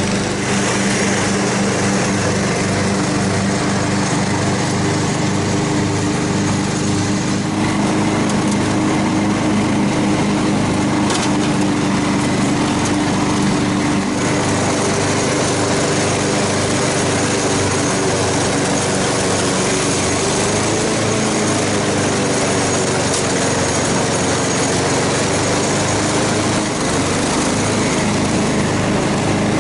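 Riding lawn mower engine running steadily at mowing speed while cutting grass, its pitch wavering slightly about two-thirds of the way through.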